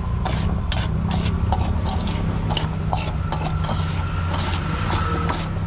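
Metal spoon scraping and clinking against a stainless steel bowl as chickpea sundal is stirred and tossed, in a quick irregular run of short strokes. A steady low hum runs underneath.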